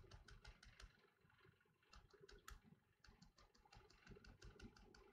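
Near silence with faint, rapid clicks of typing on a computer keyboard, coming in short runs.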